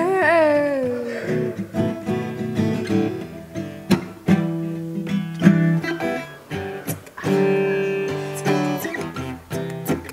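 Acoustic guitar playing a slow soul-blues accompaniment, with a woman's voice ending a long held note in a wavering fall about a second in.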